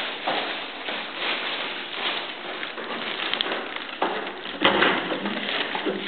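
Rustling and handling noise from a hand-held camera being carried on the move, with a louder bump about four and a half seconds in.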